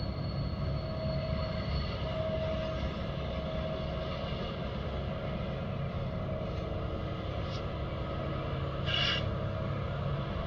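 Two TasRail TR-class diesel-electric locomotives running steadily as they haul a container train, heard from a distance as a low drone. A brief high-pitched sound cuts in about nine seconds in.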